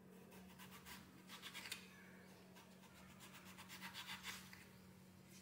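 Kitchen knife slicing through a raw potato on a wooden chopping board: faint short scraping strokes in two spells.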